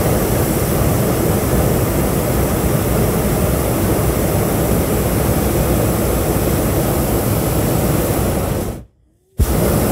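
Hot air balloon's propane burner firing: a loud, steady rushing blast that cuts off sharply just under nine seconds in, then fires again after about half a second.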